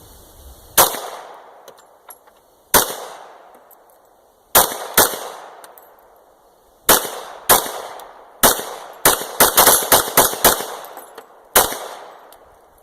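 Gunshots, about sixteen in all: single shots a second or two apart at first, then a fast string of about eight shots in quick succession, each crack followed by a short decaying echo.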